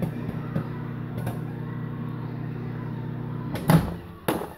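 Microwave oven running with a steady electrical hum while heating popcorn, then stopping with a loud clunk about three and a half seconds in.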